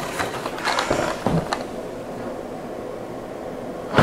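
Cardboard packaging being handled, with rustling and a few light knocks in the first second or so, over a steady hiss.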